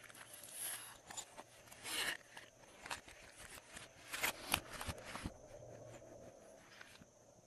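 Glossy slime being mixed and squished: irregular sticky clicks and crackles, busiest in the first five seconds and thinning out near the end.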